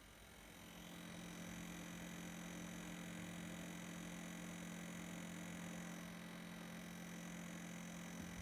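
Huawei MateBook D15 laptop's cooling fan spinning up over about the first second, then running steadily with a low hum over an airy hiss.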